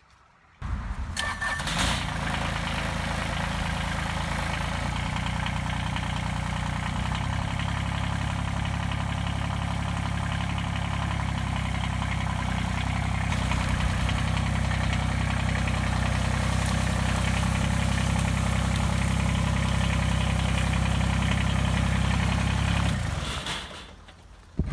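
A motor starts abruptly, runs at a steady pace for about twenty seconds, then winds down and stops near the end.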